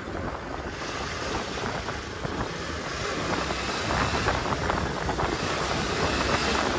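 Wind rushing and buffeting over the microphone of a moving motorcycle, with engine and road noise underneath, growing a little louder as the bike picks up speed.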